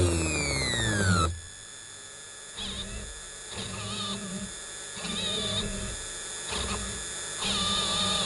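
Stepper motors of a homemade drawing machine whining, first in a falling glide that cuts off about a second in, then in about five short separate moves, each under a second, with a wavering pitch as the pen head moves at the ink pot.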